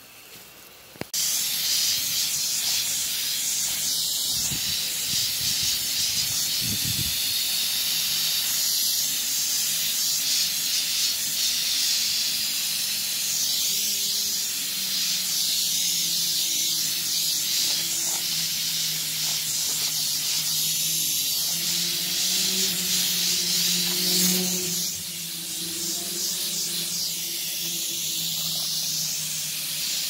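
Garden hose spray nozzle hissing steadily as a jet of water showers onto soil and plants. The hiss starts suddenly about a second in.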